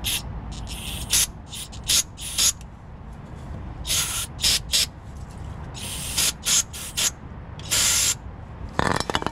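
An aerosol cleaner sprayed in a series of short hissing bursts, the loudest about four and six and eight seconds in, onto the grimy knock-sensor wiring connector of an LT1 V8 to clean it before it is plugged in. A short rattle of clicks comes near the end.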